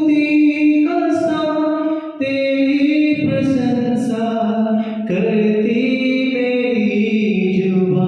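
A man singing a Hindi Christian worship song into a microphone, holding long notes that step from one pitch to the next every second or two.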